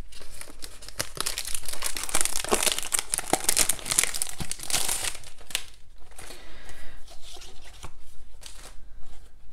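Clear plastic packaging sleeve being pulled open and off a planner cover and sticker book, crinkling and crackling densely for about five seconds, then in softer, scattered rustles.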